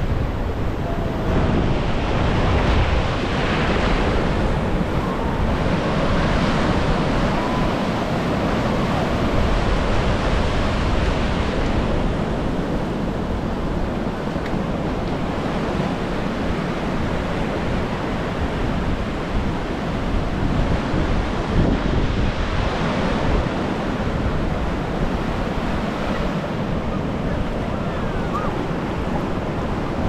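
Sea surf washing steadily onto a sandy beach, with wind buffeting the microphone.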